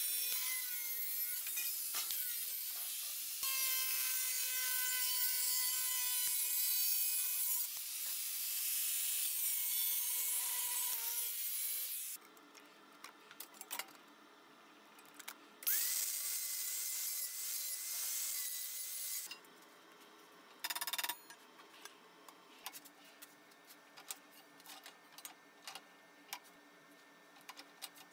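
Bosch angle grinder with a cut-off disc cutting through thin sheet steel, a loud steady whine with a hiss, dipping briefly about three seconds in and stopping about 12 seconds in. The grinder spins up with a rising whine and runs again for about three seconds, followed by light clicks and taps of handling.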